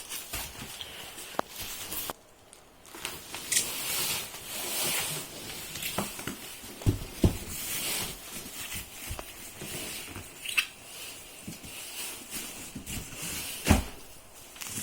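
Cardboard box and packing material being handled and unpacked: irregular rustling and crinkling with a few knocks, the loudest near the end.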